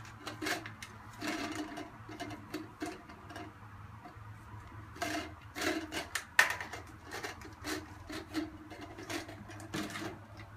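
Plastic clicking and rubbing as a new toilet fill valve is handled and twisted to adjust its height, with irregular small clicks and a sharper knock about six seconds in. A faint steady low hum lies underneath.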